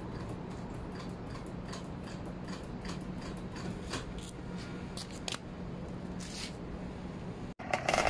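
Irregular light clicks and small knocks of hand work on a scooter, over a steady low hum. Music starts near the end.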